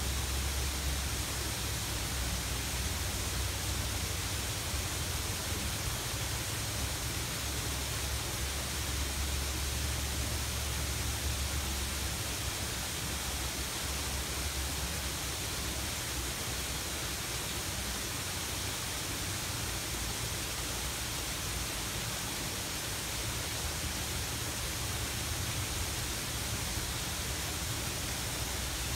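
Steady rushing of a garden waterfall pouring over rocks into a pond, with a low rumble underneath that fades out about twelve seconds in.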